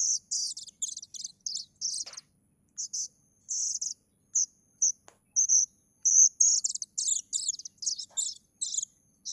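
Kedasih cuckoo chick calling: a rapid, uneven series of short, high-pitched, hissy chirps, several a second, with brief pauses between clusters.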